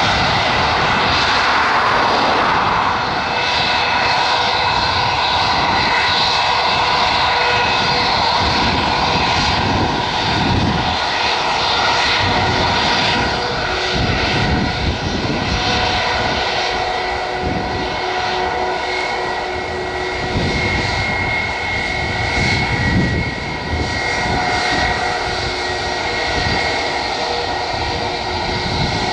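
Airliner engines running steadily, a whine of several held tones over a rumble, with gusty wind buffeting the microphone.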